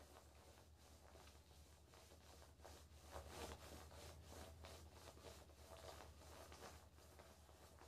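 Near silence: faint, irregular rubbing and rustling of hands handling a smartwatch and a thin charging wire, over a low steady hum.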